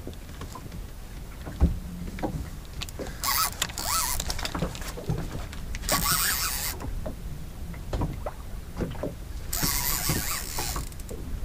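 Sounds of a big fish being fought on a heavy boat rod and multiplier reel from a small boat at sea: water slapping the hull, small knocks and clicks of the tackle and boat, and a sharp thump early on. Three short rushes of hiss come at intervals.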